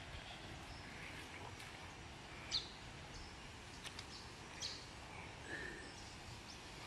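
Faint outdoor ambience with a few short, high bird chirps, the loudest about two and a half seconds in.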